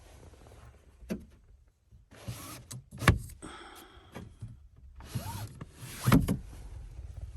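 Two loud thuds about three seconds apart, each coming after a short rush of scraping noise.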